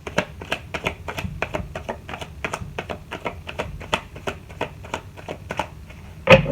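Tarot deck being shuffled by hand: a steady run of crisp card clicks, about four a second, with one louder knock near the end.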